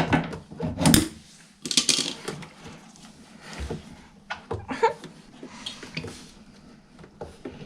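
Pliers clicking and knocking on a metal spring hose clip as it is worked off the waste pump hose inside a washing machine. There is a short rushing noise about two seconds in, followed by scattered small clicks.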